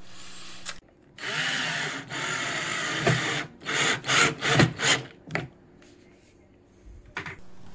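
Cordless drill/driver driving a screw through a steel drawer slide into a wooden tray side. It runs continuously for about two seconds, then gives several short trigger bursts as the screw is seated.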